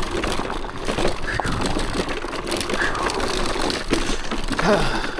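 Off-road electric scooter riding over a rocky trail: tyres crunching and clattering over stones and gravel, with steady low wind rumble on the microphone. A brief vocal sound from the rider comes near the end.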